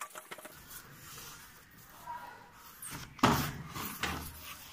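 Faint clicks, then a loud clunk about three seconds in that trails off over about a second: a Honda Activa scooter being tipped over by hand to pull its rear wheel off the axle.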